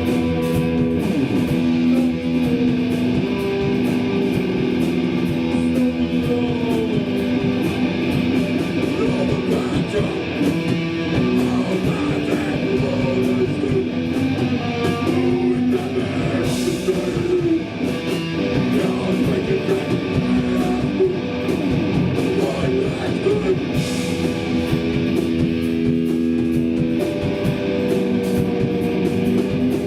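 Live hardcore punk band playing loudly, with distorted electric guitars holding chords over drums that keep a steady beat with cymbals.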